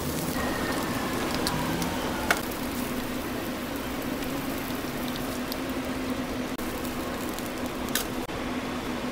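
Burger patties, egg and bacon sizzling on a flat-top griddle, a steady hiss over a low hum. A metal spatula clicks sharply against the griddle twice, once about two seconds in and once near the end.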